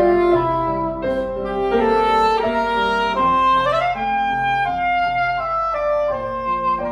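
Soprano saxophone playing a slow melody over grand piano accompaniment, with one note sliding upward about three and a half seconds in.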